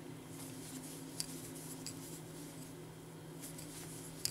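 Faint rustling and rubbing of yarn being worked with a metal crochet hook, with a few light clicks, over a steady low hum.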